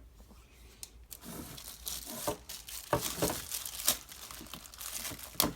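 Packaging being crinkled and rustled by hand as it is pulled off the newly unboxed speakers, starting about a second in, with sharp crackles throughout.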